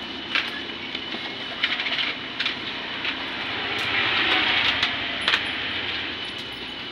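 Scattered light clicks and scratches of a kitten's claws and a hand on a plastic tablecloth as the kitten pounces and paws. A rushing noise swells and fades around the middle.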